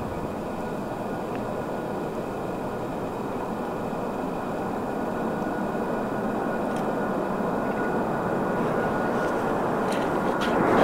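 Boeing 747 jet engines running, growing slowly louder as the aircraft nears, a steady high whine over the engine rumble.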